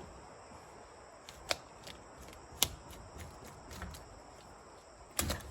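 A few sharp clicks and knocks over a faint steady background: one about one and a half seconds in, a louder one about a second later, and a short cluster of knocks near the end.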